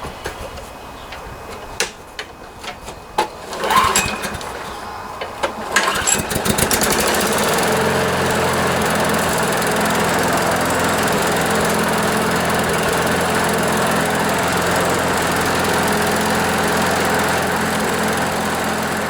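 John Deere JS26 push mower: a few knocks and clatter, then its small engine starts about six seconds in and settles into running at a steady speed.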